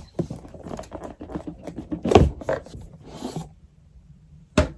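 Packaging being handled as a graphics card is unboxed: irregular scraping and rustling of cardboard and plastic, with a thump about two seconds in and a sharp click near the end.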